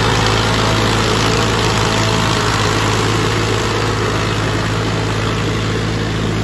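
Massey Ferguson 240 tractor's three-cylinder diesel engine running steadily under load as it drags a tined cultivator through flooded mud, with a steady rushing noise over the engine note.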